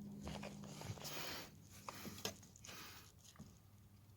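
Faint handling noises: a light rustle, then a few small plastic clicks as a trim cover on a Subaru Impreza's front door panel is worked loose by hand.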